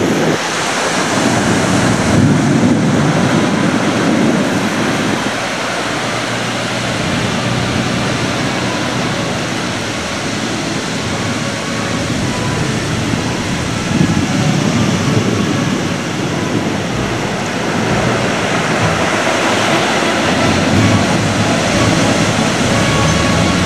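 Surf washing onto a sandy beach in a steady hiss, with wind rumbling on the microphone in gusts.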